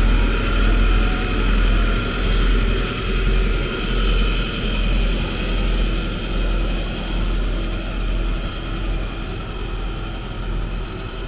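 An engine running steadily, a low rumble with a steady whine above it, slowly fading.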